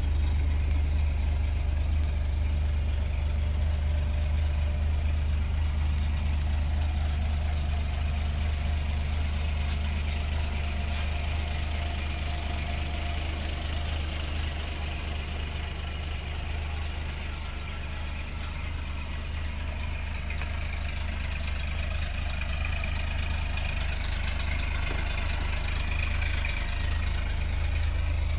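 The 2F inline-six engine of a 1977 Toyota FJ40 Land Cruiser idling steadily.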